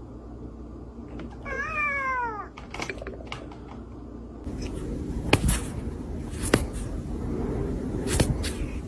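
A domestic cat meowing once, a drawn-out meow that falls in pitch, followed later by several sharp short knocks.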